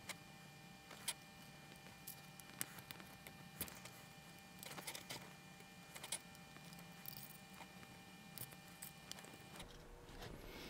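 Faint, scattered clicks and taps from small robot-kit parts and a small screwdriver being handled while tiny screws are fastened, about a dozen sharp ticks at uneven intervals with a short cluster near the middle.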